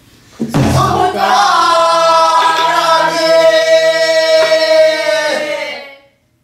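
A woman singing pansori, holding one long note, loud and full of overtones. A low buk drum thump comes as the note begins, and a few sharper stick knocks follow. The voice breaks off near the end.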